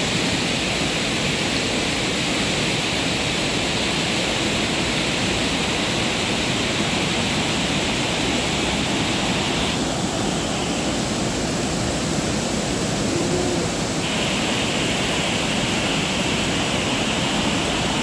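Waterfall in full monsoon flow and the flooded whitewater torrent below it, rushing steadily. The higher hiss eases for a few seconds past the middle, then comes back.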